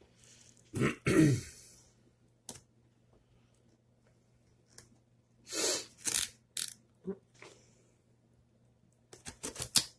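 A pocket knife cutting the packing tape on a cardboard shipping box: scattered short scrapes and taps. The loudest burst comes about a second in, and a quick run of clicks comes near the end.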